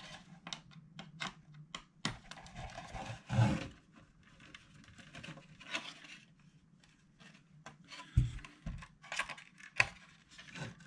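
Scattered clicks, taps and light scraping of hands handling a vintage RC car's hard, brittle Lexan plastic body, with a few firmer knocks about a third of the way in and again near the end.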